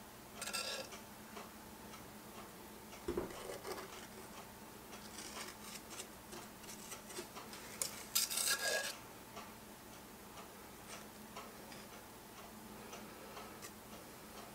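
Quiet clinks and scrapes of a spoon against a glass measuring jug as thick bath bomb frosting is scooped out, with a soft knock about three seconds in and a cluster of brighter clinks around eight seconds.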